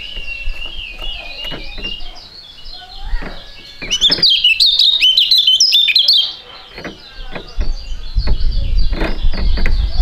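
Caged white-eye (kecial) singing: high, quick chirps and twitters, breaking into a fast, loud run of song about four to six seconds in. A low rumble joins in over the last couple of seconds.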